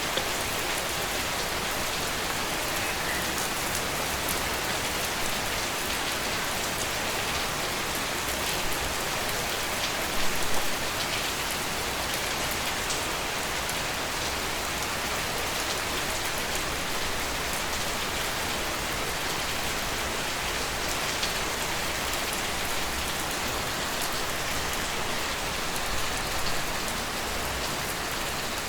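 Steady rain falling and pattering on a surface, with fine scattered drop ticks and a brief louder patter about ten seconds in.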